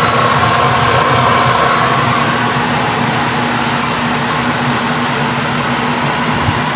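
Steady whirring hum of an electric fan motor, with a low, even tone and a fainter higher whine.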